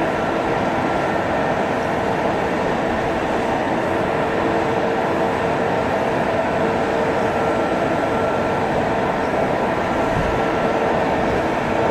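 EP2K electric passenger locomotive at a platform, its machinery humming steadily with several held tones over a wash of noise.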